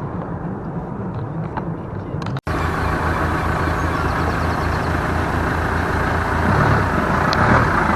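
Boat engine running steadily while the boat is under way to a fishing mark. The sound drops out for an instant about two and a half seconds in, then comes back louder with a rushing noise over the engine hum.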